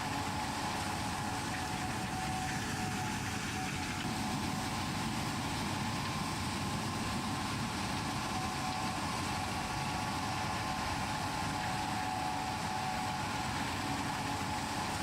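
Combine harvester running steadily: an even machinery rumble with a constant whine on top.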